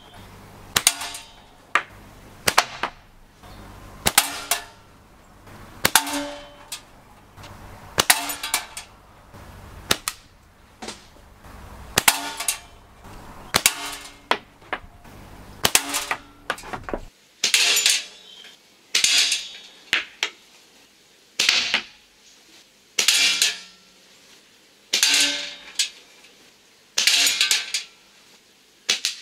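Barnett Black Widow slingshot firing 10 mm stainless steel balls at a steel target: a rapid string of sharp cracks from the band releases and ball strikes, about one every second or two, some with a short metallic ring.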